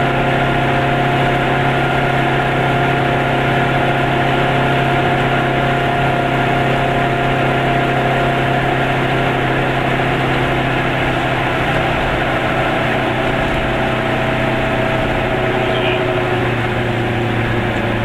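Goggomobil microcar's small two-stroke twin engine running steadily at cruising speed, heard from inside the cabin with tyre and road noise. Its drone dips slightly in pitch near the end.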